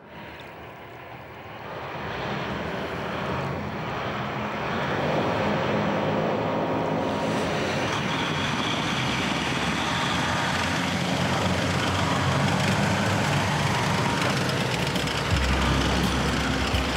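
Engine of a tracked amphibious military vehicle running under load as it drives through water and up out onto a ramp, with water rushing. The sound swells over the first couple of seconds, and a deeper rumble comes in near the end.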